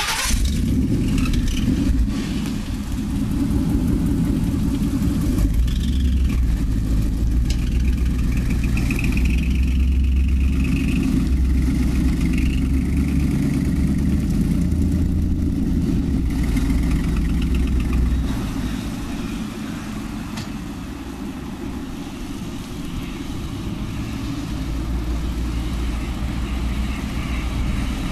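V8 engine of a Ford F-150 SVT Lightning pickup running steadily as it pulls away towing a car on an A-frame, dropping lower about two-thirds of the way through as the pair moves off.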